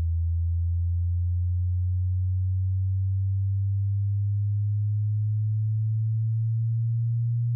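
A pure sine test tone, a very low hum that rises slowly and steadily in pitch. It is the early part of a sweep across the range of human hearing, from 20 to 20,000 vibrations per second.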